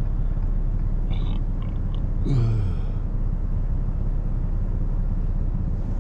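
Vehicle engine idling with a steady low rumble. A short vocal sound cuts in about two and a half seconds in.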